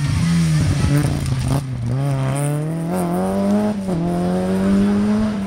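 Rally car engine accelerating hard past and away. The note climbs, drops sharply nearly four seconds in as it shifts up a gear, then climbs again.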